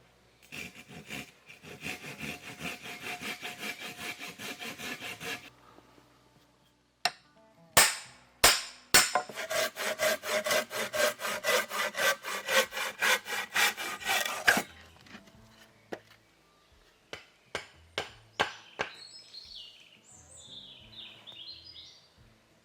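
Hand saw cutting wood in fast, even back-and-forth strokes, in two runs of several seconds each, with a few sharp knocks between and after them. A bird chirps near the end.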